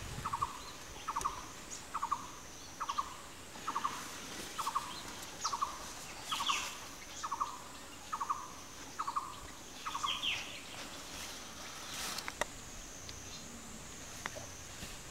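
A bird calling a long run of short, evenly spaced notes, about a dozen of them a little under a second apart, each a quick doubled note, stopping about ten seconds in. A steady, wavering high-pitched whine runs underneath.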